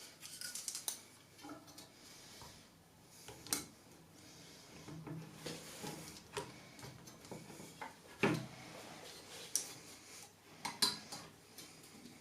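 Scattered clicks, taps and light clatter of hard computer parts being handled and fitted, with a louder knock about eight seconds in.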